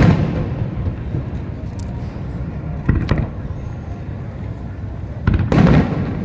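Aerial fireworks shells bursting: a boom at the start, another about three seconds in, and a louder cluster of bursts near the end, each trailing off into a low rumble.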